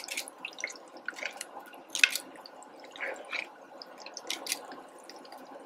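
Hush puppies deep-frying in hot grease in a cast-iron Dutch oven: irregular crackles and pops of the oil over a faint steady hiss.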